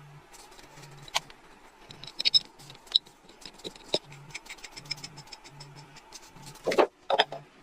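Hand work on small metal parts: scattered clicks and taps with light scraping, and two louder knocks near the end.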